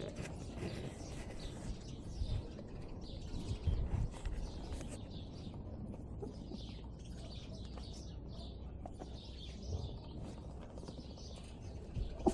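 Caucasian Shepherd puppies squeaking and whimpering, many short, faint, high-pitched squeaks, with a few soft thumps.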